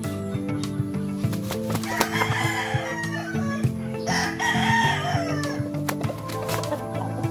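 Rooster crowing twice, about two seconds in and again around four seconds in, over background music of sustained notes.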